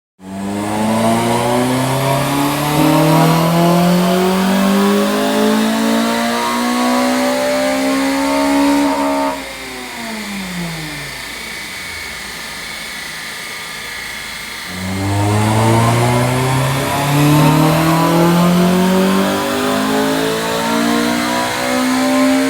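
Honda Civic FN2 Type R's four-cylinder engine, with an induction kit, four-branch manifold, decat and aftermarket exhaust, pulling at full throttle on a rolling road. The revs climb steadily for about nine seconds, fall away sharply as the throttle is lifted, and after a few quieter seconds a second pull climbs again.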